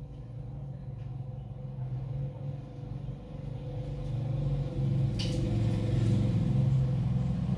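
A low, steady motor rumble that grows louder through the second half, with a brief hiss about five seconds in.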